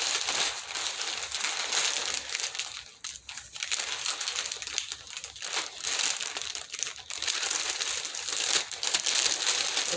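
Packaging of a mail-order t-shirt crinkling and rustling as it is handled and opened by hand, in irregular bursts with brief lulls.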